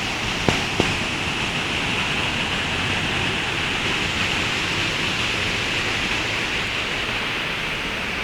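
Waterfall: a steady, even rush of falling water. Two short sharp clicks about half a second and just under a second in.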